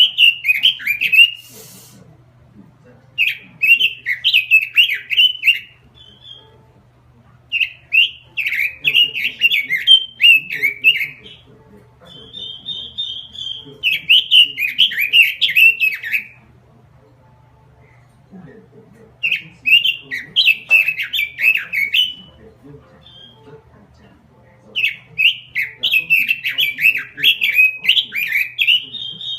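Pekin robin (red-billed leiothrix) singing in fast warbling phrases of two to four seconds each, about six of them, separated by short pauses. A faint steady low hum runs underneath.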